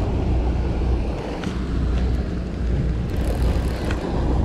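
Steady low rumble of a harbour ferry's engine and propeller wash churning the water alongside the wharf, with wind buffeting the microphone.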